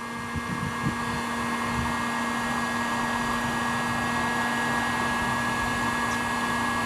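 Electric heat gun running steadily, blowing hot air onto a motorcycle ignition pickup coil to bring it up to engine temperature: an even rush of air with a low hum and a thin steady whine.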